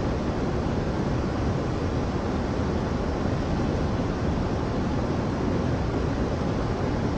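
Steady, unbroken rush of whitewater rapids, water pouring over rock ledges, heavy in the low end.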